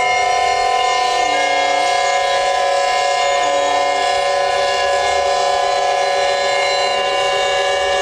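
Steam whistles and a large hot pipe organ sounding a dense, sustained chord of many held notes, with a lower note that sags briefly in pitch three times.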